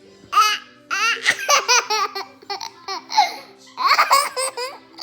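A young child laughing in a string of high-pitched bursts, starting about half a second in.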